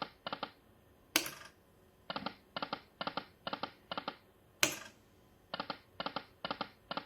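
Poker machine sounds during repeated spins. Each game opens with a short, louder spin sound, then a quick run of about six even clicks as the reels stop one after another. The cycle comes twice, about three and a half seconds apart.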